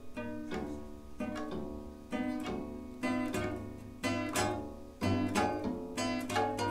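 Background music: plucked notes on a guitar-like string instrument, about two a second, each ringing and fading before the next.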